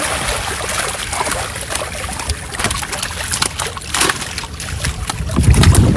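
Many netted fish thrashing and splashing in shallow water, a continuous run of sloshes and quick splashes, with a louder low rumble near the end.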